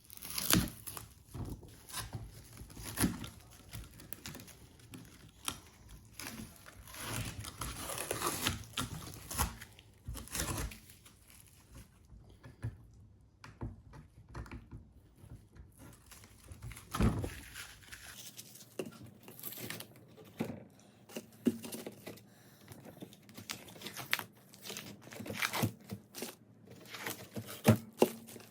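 Masking tape being peeled and torn off a fiberglass seat-base mould, in irregular rips with crinkling.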